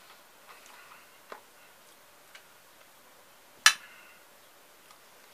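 Metal spoon clinking against an enamel pot of sliced-cucumber salad as it scoops, with faint scattered clicks and one sharp clink a little past halfway that rings briefly.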